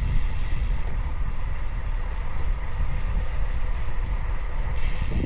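Wind buffeting the microphone of a camera on a moving bicycle, a steady low rumbling rush.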